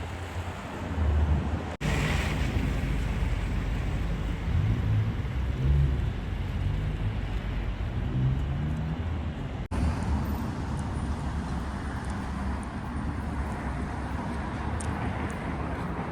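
Road traffic noise: motor vehicles running past, a steady low rumble.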